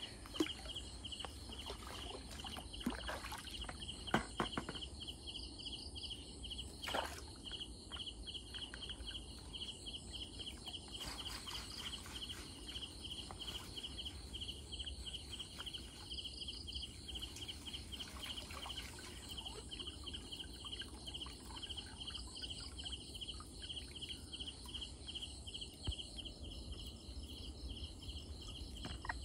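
Night insects chirping in a fast, steady, high-pitched pulse, with scattered light knocks and watery rustles as a mesh fish trap is handled in shallow water.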